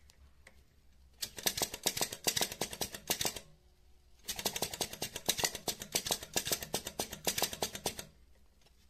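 Small flame-licker (vacuum) hot air engine running with rapid, even clicking, about nine clicks a second. It clicks for about two seconds, pauses for about a second, then clicks for about four seconds more.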